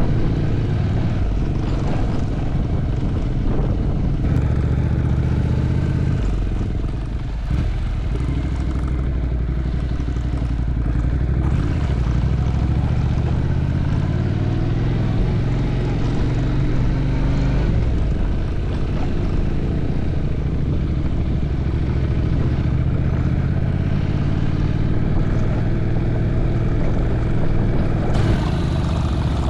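Motorbike engine running steadily while riding, with a brief drop in level about seven seconds in.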